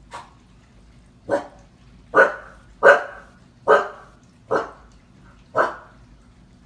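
Husky puppy barking in single, separate alarm barks at something that frightens it: a faint one at the start, then six loud barks under a second apart.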